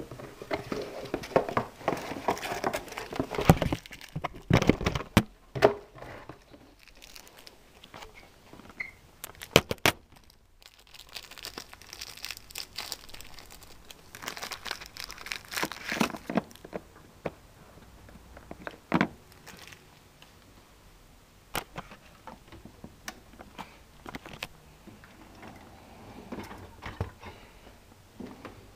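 Hands working at a dishwasher: patches of crinkling and rustling with scattered sharp clicks and knocks, the loudest knocks about ten seconds in and again near twenty seconds.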